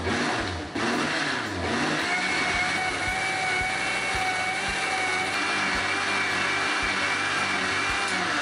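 Electric countertop blender running at full speed, its blade churning boiled tomatoes into puree. There is a brief dip less than a second in, then a steady motor whine once the mix turns smooth. The motor winds down at the end.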